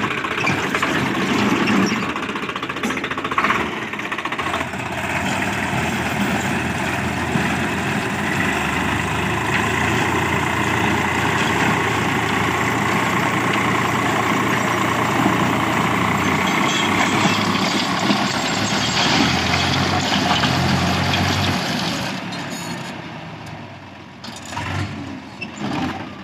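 Diesel tractor engine running under load, driving a PTO-powered rotavator whose blades churn the soil. This is a test run of the PTO after a repair for the PTO gear slipping into neutral. The sound is steady and fades away near the end.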